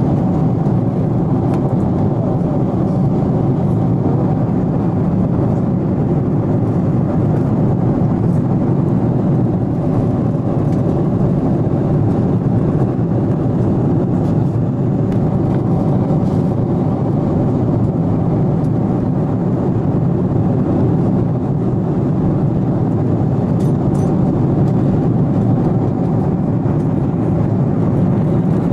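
Airliner cabin noise in flight: steady engine and airflow noise, even throughout, with a faint steady hum.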